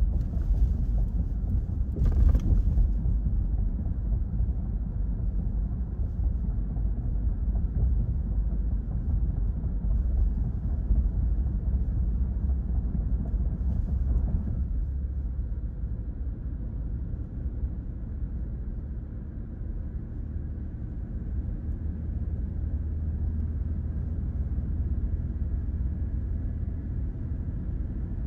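Steady low road hum of a car driving, heard from inside the cabin, with a brief click about two seconds in.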